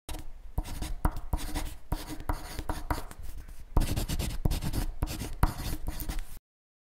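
Pen scratching across paper in quick drawing and writing strokes, with small taps, cutting off suddenly about six seconds in.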